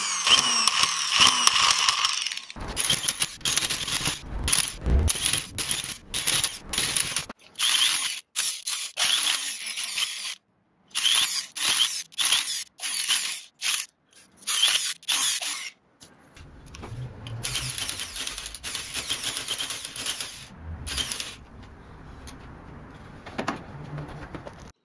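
Handheld electric rug-tufting gun punching yarn into the stretched backing cloth. It starts with a whining run, then stops and starts many times in short runs, and then runs more quietly and steadily near the end.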